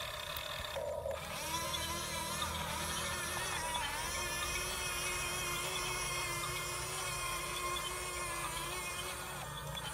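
Small electric motor and plastic gearbox of a toy RC excavator whining steadily, its pitch wavering slightly as it works.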